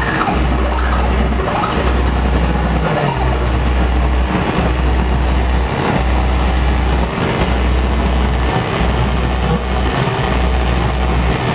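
Live electronic noise music from a modular synthesizer and an electric organ: a deep bass pulse about every one and a half seconds under a dense, rumbling wash of noise.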